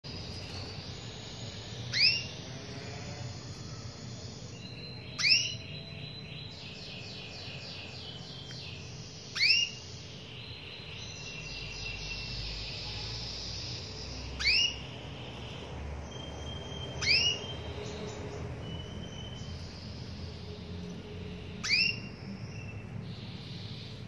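Female domestic canary calling for a male: six loud, short, upward-sweeping call notes spaced a few seconds apart. Fainter steady trilling and twittering of other birds runs behind them.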